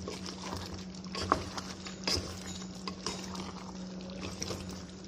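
Wooden spoon stirring a thick, simmering chicken afritada stew of chicken, potato and carrot chunks in a pot, with a few light knocks of the spoon against the pot and a steady low hum underneath.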